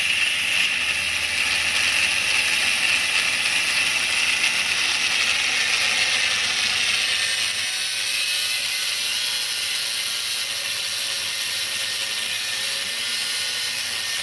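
MIG welder arc crackling steadily, a continuous dense frying buzz.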